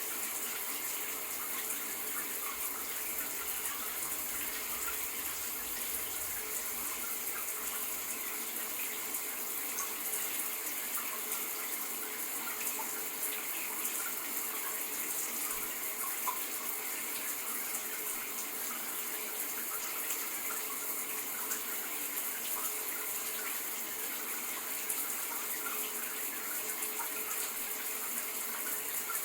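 Shower running steadily: an even hiss of water spraying and falling.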